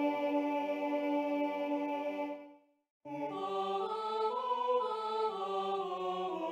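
Computer playback of a four-part choral arrangement from music notation software. A sustained chord fades out into a brief rest about two and a half seconds in, then the voices come back in with a quick run of short, moving notes.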